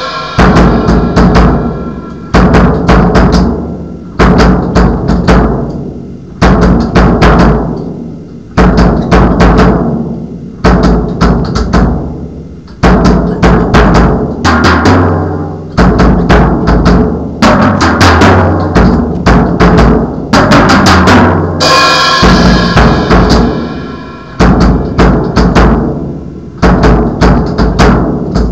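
A drum kit played loud in a repeating groove: a burst of drum strokes about every two seconds, each dying away before the next, with cymbal crashes at the start and about 22 seconds in.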